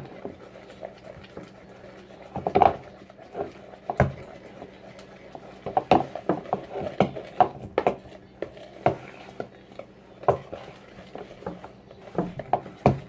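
Slime being stirred in a bowl with a utensil: irregular clicks and knocks of the utensil against the bowl as the borax-activated slime thickens.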